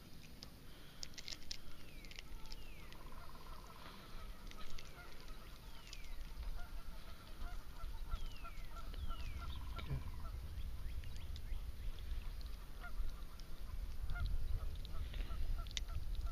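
Birds calling outdoors: a long run of short, evenly repeated notes, about four a second, with several falling whistles over it. A low rumble grows near the end.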